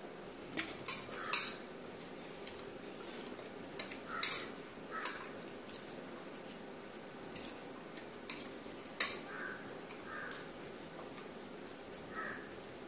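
A hand mixing whole mackerel into a thick wet masala paste in a stainless steel bowl: soft wet squishing with about a dozen scattered sharp clicks as the hand and fish knock against the steel bowl.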